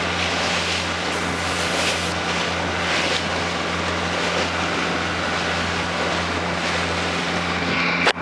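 Motor cruiser's engine running steadily at cruising speed, a constant low drone under the rush of wind and water. A brief knock near the end.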